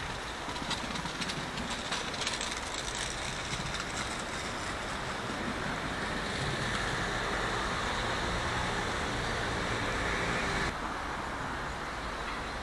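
Steady outdoor town-square ambience: a continuous hiss of traffic and running water. It swells midway through and drops abruptly about eleven seconds in.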